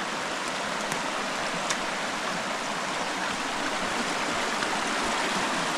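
Mountain creek running high after heavy rain, a steady rush of water at the crossing.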